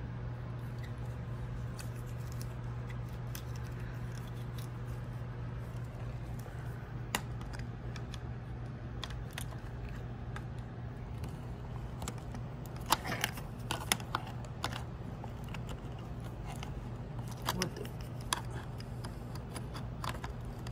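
Faint scattered clicks and taps of a plastic USB flash drive being handled and pushed against the side ports of a ThinkPad T420 laptop, over a steady low hum.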